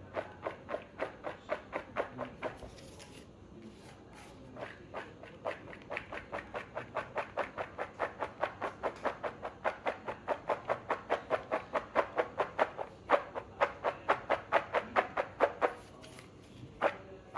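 Pink plastic colander shaken back and forth over a plastic bowl, the tapioca-starch-coated cubes inside rattling with each shake as the loose starch sifts through, about three or four shakes a second. The shaking pauses briefly about three seconds in and again near the end.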